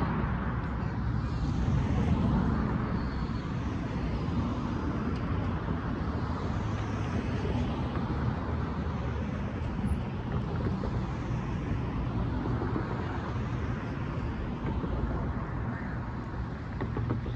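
Road traffic: cars driving past one after another across the crossing, the tyre and engine noise swelling and fading as each goes by.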